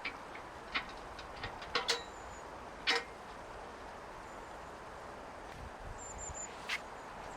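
Steady rush of water from a mountain river and heavy rain, with a few scattered sharp taps, the loudest about three seconds in, and a couple of faint high chirps.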